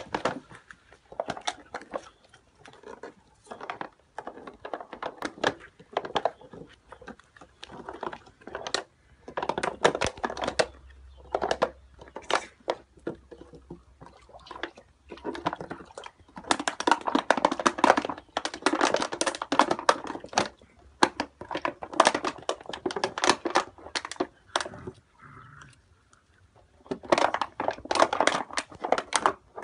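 Rhodesian Ridgeback puppies making small, irregular smacking and clicking mouth and movement noises in bursts, with quieter gaps between them.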